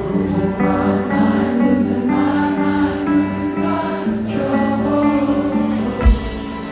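Rock band playing live with a singer, with splashy percussion hits about once a second and a heavy deep thump near the end.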